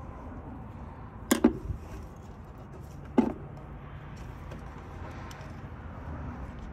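Tools and parts knocking in an engine bay during supercharger removal: a sharp double knock about a second and a half in and a single knock about three seconds in, over a steady low rumble, with a few faint clicks.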